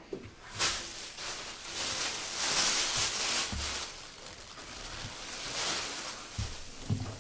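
Plastic bag rustling and crinkling as it is handled, coming in swells, with a few soft low thumps.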